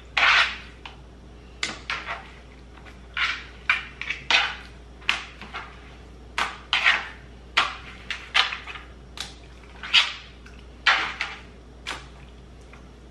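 Hands rubbing and turning raw catfish fillets coated in mustard on a plastic platter: irregular short handling noises, one or two a second.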